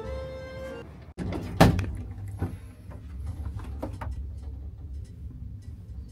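Inside a hotel lift cabin: a loud clunk about a second and a half in, then a steady low hum of the lift running, with a few light knocks.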